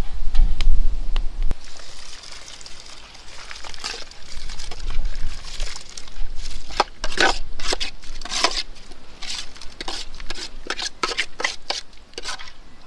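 Water sloshing and splashing in a large metal pot as it is set on a wood fire and wet urad dal is poured into it, over the irregular crackle of the burning wood. There is a low rumble in the first second or so.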